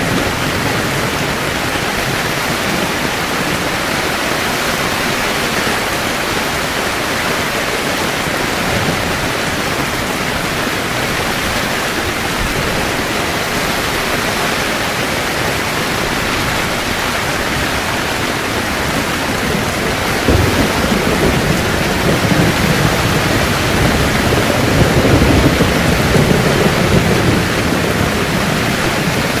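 Heavy rain pouring steadily on a camping tent. A low rumble of thunder swells about two-thirds of the way through and fades near the end.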